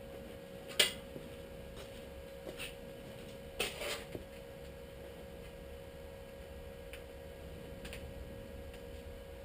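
Light metal clinks from handling metal at the bench: one sharp click about a second in and a short clatter near the middle, with a few faint ticks, over a steady hum.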